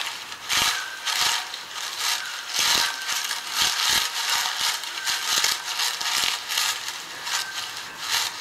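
Footsteps crunching at a walking pace, about two steps a second, made as a radio-drama sound effect.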